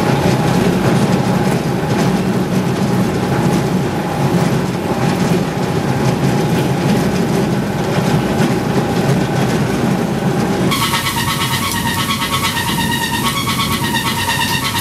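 Shredder and conveyor line processing shredded refuse-derived fuel, running with a loud, steady machine noise. About two-thirds of the way through the sound changes abruptly to a different machine sound, with several steady whining tones over the noise.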